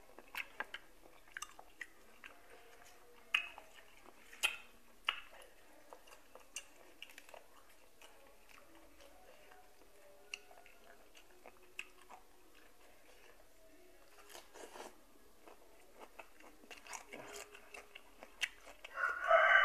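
Biting and chewing while eating boiled golden apple snails, with scattered short sharp clicks as the meat is picked from the shells with a toothpick.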